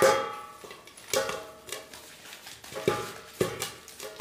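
Maize kernels popping in hot oil in a pan covered with a steel plate. Sharp pops come at irregular intervals, the loudest right at the start, and each kernel striking the steel lid makes it ring briefly.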